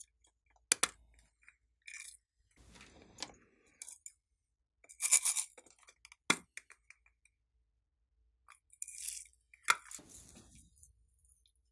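Hands working over a glass tray of small foam beads: crunching and rustling of the beads, with three sharp clicks of hard objects knocking, about a second in, around six seconds in and near the end.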